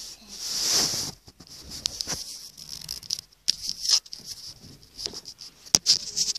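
Handling noise: rustling, scratching and light clicking of a handheld phone and doll being moved about, with a louder rustle in the first second and sharp clicks coming faster near the end.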